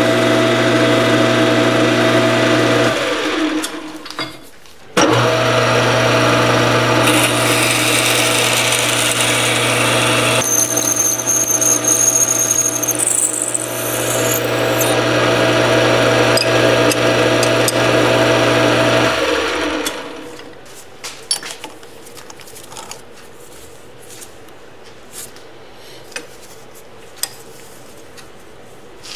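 Metal lathe running steadily as it turns steel stock, then with a twist drill in the tailstock chuck boring into the spinning workpiece, a thin high squeal sounding for a few seconds partway through. About two-thirds of the way in the lathe spins down and stops, leaving a few small clicks.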